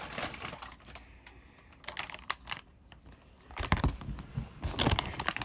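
Clicks and light rustling of small objects being handled, sparse at first and busier in the last couple of seconds.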